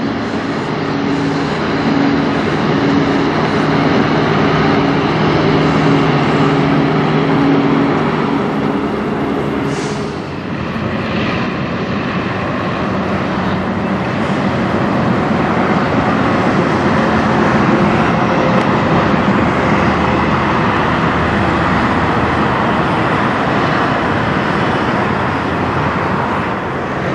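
Diesel engine of a Kenworth semi truck running steadily at low speed. About ten seconds in it changes to the steady noise of a Kenworth tractor-trailer travelling along the highway, mostly tyre and road noise.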